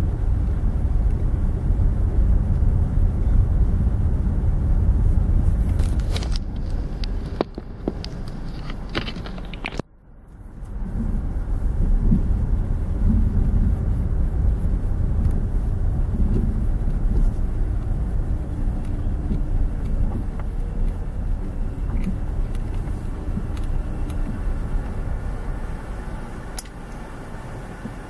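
Low, steady rumble of a car's engine and tyres at slow driving speed, picked up from inside the car. A few sharp clicks come about a third of the way in, followed by a sudden short dip in the noise before the rumble returns.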